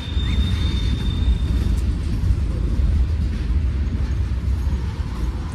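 Freight train of covered hopper cars rolling past, a steady low rumble of wheels on rail. A thin, steady high tone fades out about a second and a half in.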